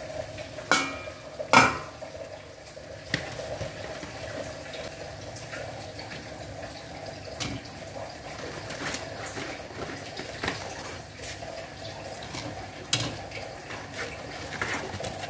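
Water bubbling steadily in a stainless steel pot on a gas stove. A metal pot lid clanks twice about a second in, followed by scattered light knocks as dry lasagna noodles are set into the pot.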